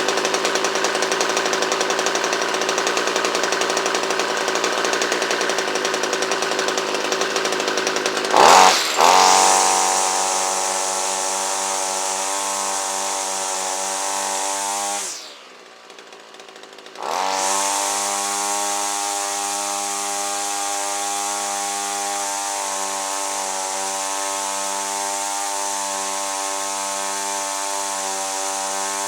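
Small two-stroke engine of a Homelite string trimmer running on a carburetor converted to adjustable needles. It is revved sharply once about eight seconds in and settles back. The sound drops away for about two seconds midway, then the engine runs again at a steady idle with a slight rhythmic wobble.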